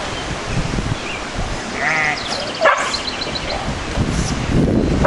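Sheep bleating: one wavering bleat about two seconds in, followed by a few shorter, sharper cries.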